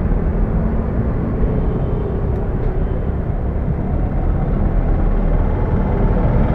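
Steady low rumble of motor-vehicle engines and road traffic, with a faint engine hum.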